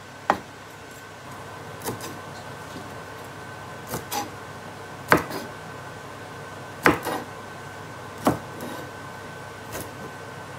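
Chef's knife cutting flowering greens on a wooden cutting board: about eight sharp knocks of the blade on the wood, spaced unevenly a second or two apart.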